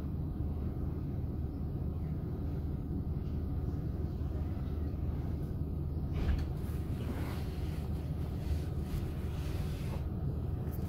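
Tram running: a steady low rumble, with faint clicks and rattles from about halfway in.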